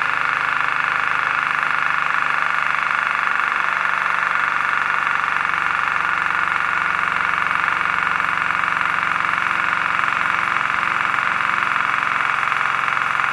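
Pneumatic air hammer running steadily at full throttle, hammering rapidly and without a break, powered by CO2 from a 12 oz paintball cylinder through a regulator.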